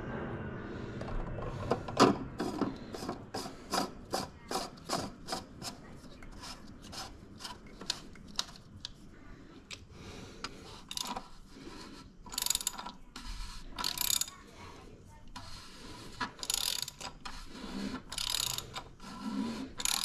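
Socket ratchet clicking as the oil filter housing cap on a Jeep Pentastar V6 is wound down and tightened. A steady run of sharp clicks, about two to three a second, comes first, then a few longer scratchy ratcheting strokes near the end.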